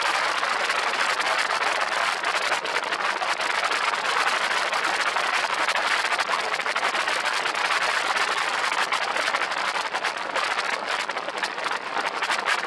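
Steady rushing noise of an open-cockpit ultralight aircraft in flight: airflow buffeting the exposed microphone over the propeller-driven engine, with no distinct events.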